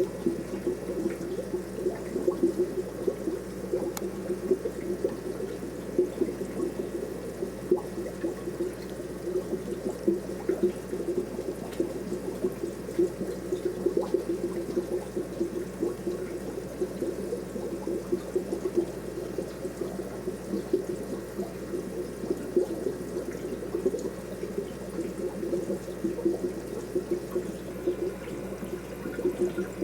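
Steady trickling and bubbling of water in a shrimp aquarium, with a constant fine flutter.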